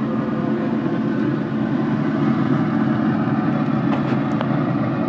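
Traeger pellet smoker running with a steady hum from its fan while it smokes at 225 degrees.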